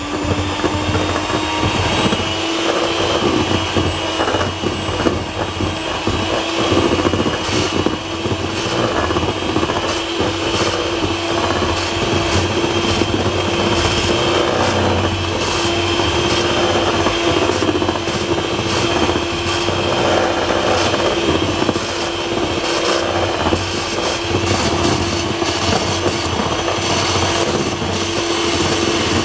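Electric hand mixer running steadily at high speed, its beaters creaming butter in a metal bowl: a steady motor whine with the beaters clattering against the bowl. This is the stage of beating the butter until it turns fluffy and pale.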